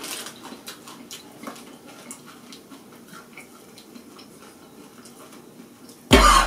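Foil chip packet being crumpled in the hands, a run of soft crinkles and clicks over the first couple of seconds, then only faint rustling. Just before the end, a sudden loud cough.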